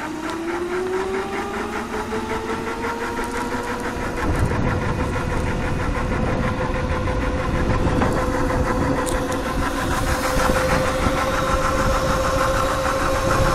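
Razor electric mini dirt bike's motor and chain drive whining under way: a rising whine that levels off to a steady high tone. A low rumble joins about four seconds in.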